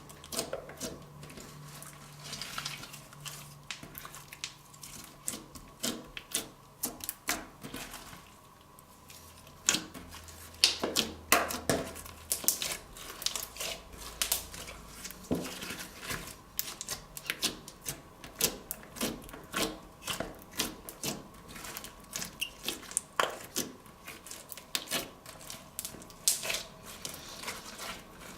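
Slime being mixed and squeezed by hand, making a stream of irregular sticky clicks and pops, with a brief lull about eight seconds in.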